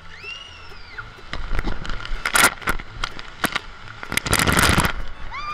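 Water rushing and splashing over a tube raft and the camera as it rides down a water slide, in loud bursts about two and a half and four and a half seconds in. A rider gives a high rising-and-falling whoop near the start and another near the end.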